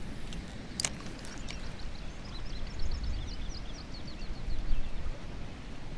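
A small bird singing a quick run of short, high, down-slurred chirps from about two to five seconds in, over a low steady outdoor rumble, with a single sharp click about a second in.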